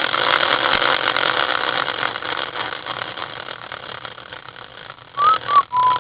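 Wooden prize wheel spinning, its clicker ticking rapidly against the pegs and fading as the wheel slows. A brief louder sound comes near the end.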